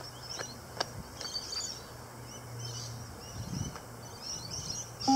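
Small birds chirping steadily, with a faint low hum and a few soft knocks. At the very end the beep-test recording sounds a short, loud electronic beep marking the next shuttle.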